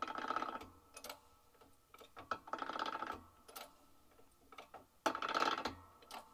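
Hydraulic shop press being pumped with its jack handle: three pump strokes about two and a half seconds apart, each a short rasp of rapid clicks, with a few single clicks between.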